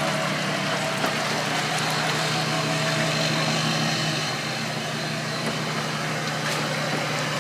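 A vehicle engine idling steadily, under a constant hiss of wind on the microphone.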